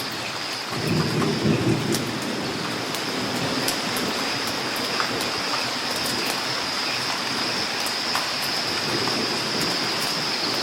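Steady rain with individual drops ticking, under a low rumble of thunder that swells about a second in and again near the end.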